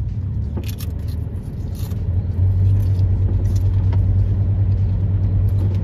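Low steady engine and road hum inside a Ford E-350 camper van driving slowly, growing louder about two and a half seconds in.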